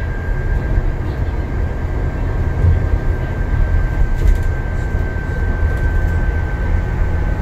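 Upper-deck cabin noise of an Alexander Dennis Enviro400 MMC diesel double-decker bus travelling at speed: a steady low rumble of engine and road, with a thin steady high whine over it.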